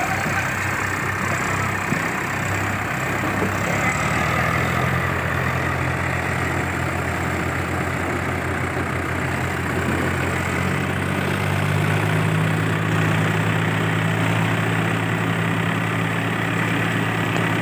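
Tractor diesel engine running steadily. About eleven seconds in, its note rises a little and gets slightly louder.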